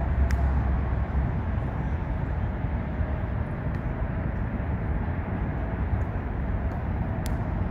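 Steady low rumble of traffic on the elevated highway overhead, with a few faint, sharp clicks.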